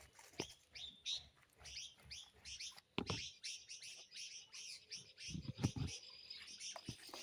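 A flock of small birds chirping and twittering, many short high calls overlapping, with a few soft thuds in between.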